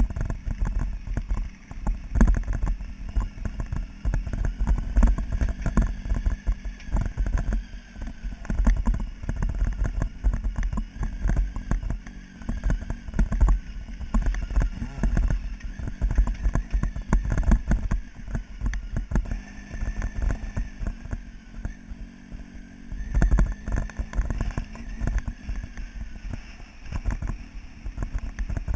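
Motorcycle riding slowly over a rough gravel track: a steady engine note under constant irregular knocks and rattles from the bike going over stones, with a heavy low rumble throughout.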